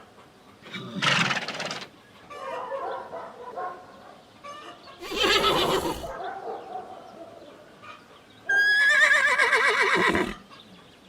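Horses neighing: three calls, the last and longest a quavering whinny that falls in pitch near the end.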